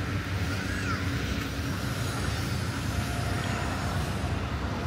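Steady street traffic noise with the low, even hum of engines running.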